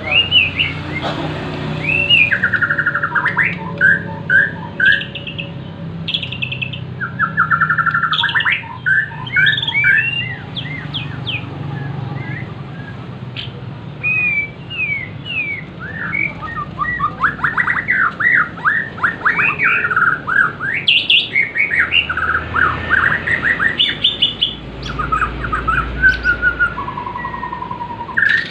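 Bornean white-rumped shama (murai Borneo) singing a long, varied song of whistled slurs and fast runs of repeated notes, with mimicked prenjak calls fired off in rapid bursts.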